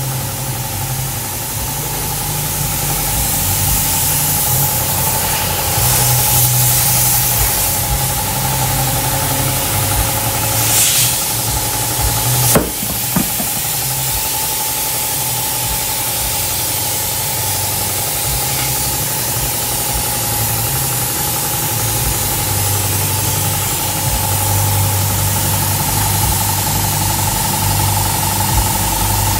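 An engine running steadily with an uneven low throb and a steady whine above it. There is a sharp knock about twelve seconds in.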